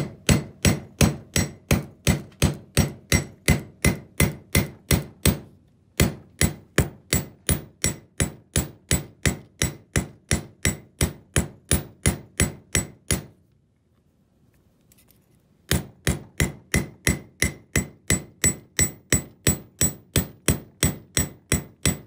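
Hammer blows on 14-gauge tinned copper wire laid on a section of steel railroad rail, flattening the wire: steady strikes about three a second, each with a short metallic ring. The hammering stops briefly about five seconds in, then again for about two seconds past the middle before resuming.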